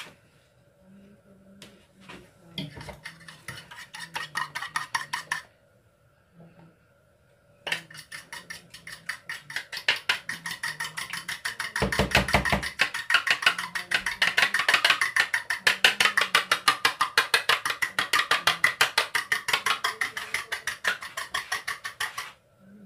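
Eggs being beaten in a plastic bowl: a utensil knocks rapidly and evenly against the bowl. There is a short run, a pause, then a long steady run that stops just before the end, with a dull bump about halfway through.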